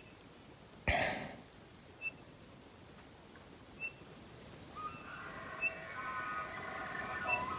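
A distant bull elk bugling from about 5 s on: a long pitched call with several tones, which sounds angsty and desperate. A small bird gives a single high chirp every couple of seconds, and a short sharp noise comes about a second in.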